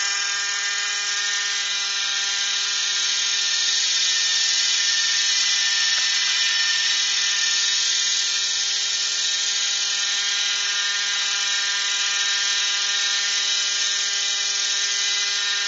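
JR Propo Venture 50 nitro RC helicopter hovering low, its two-stroke glow engine and rotors giving a steady, high-pitched whine that holds the same pitch throughout.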